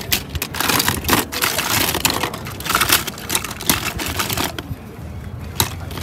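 Loose diecast toy cars clattering and clicking against one another as a hand rummages through a plastic tote full of them.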